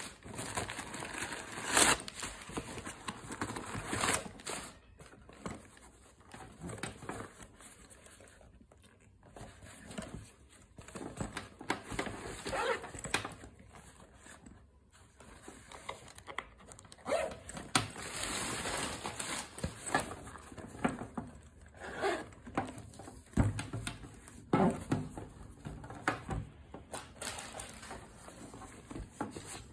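Irregular rustling and crinkling of crumpled newspaper packing as a sling bag is unpacked and handled, with scattered light knocks on the table.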